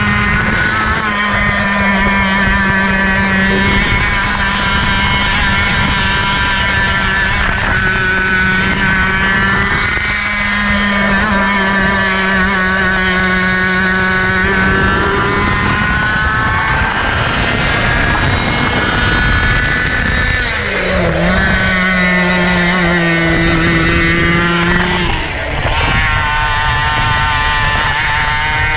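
KA100 100cc two-stroke kart engine at racing speed on a lap, its pitch climbing steadily along the straights and dropping sharply several times as the driver brakes for corners, then climbing again.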